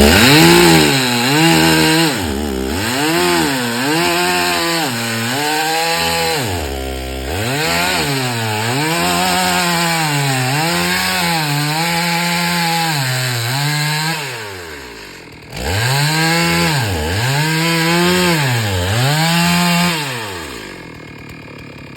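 Chainsaw cutting wood, its engine pitch sagging and recovering about once a second as the chain loads up in the cut. It drops away briefly about 15 seconds in, comes back up and cuts again, then falls away near the end.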